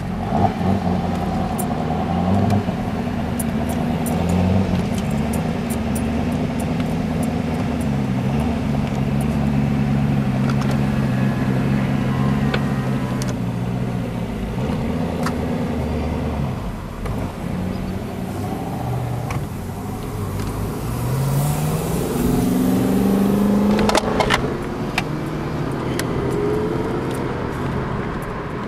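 Saleen S7 Twin Turbo's twin-turbocharged 7.0-litre V8 driving on the road, heard from a following car: the engine note rises and falls with throttle and gear changes, with a long climb in pitch about three quarters of the way through and a few sharp cracks around the same time.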